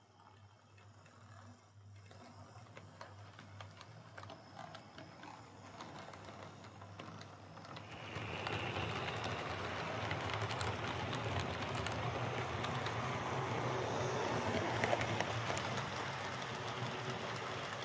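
Hornby OO gauge Class 3F 'Jinty' tank engine model, fitted with a replacement motor, running with a train of coaches: a steady motor whir with wheels clicking and rattling over the track. It grows louder as the train nears, stepping up about eight seconds in.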